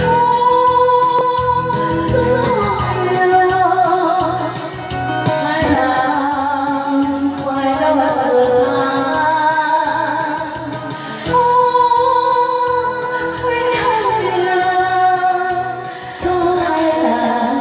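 A woman singing a song over instrumental backing, holding long notes with vibrato and sliding between pitches.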